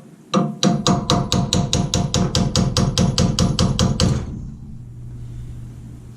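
A hammer striking metal in a rapid, even series of about five blows a second, each with a short metallic ring, stopping about four seconds in; a faint steady low hum follows.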